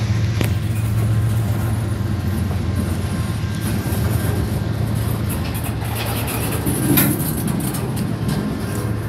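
Freight cars rolling past: a steady noise of steel wheels running on the rails, with a louder sharp knock about seven seconds in.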